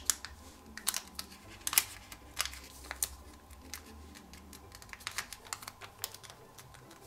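Thin origami paper (kami) crackling and clicking as fingers press and crease folds, in irregular sharp clicks that are loudest in the first two seconds, over a faint low hum.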